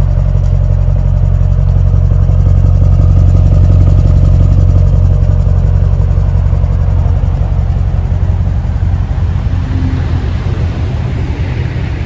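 Mercedes-AMG GLE 63 S twin-turbo hybrid V8 exhaust idling with a steady, deep rumble, swelling a little a few seconds in and easing slightly toward the end.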